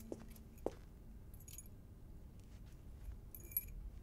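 Faint metallic jingling, twice, about two seconds apart, with a couple of soft clicks in the first second.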